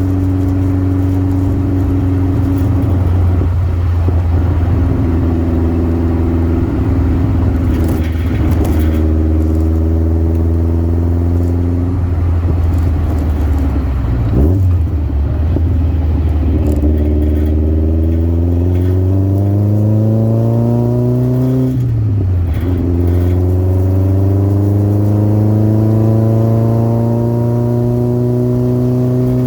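Birkin Seven's engine accelerating through the gears: the note climbs steadily, then drops sharply at each of several gear changes before climbing again.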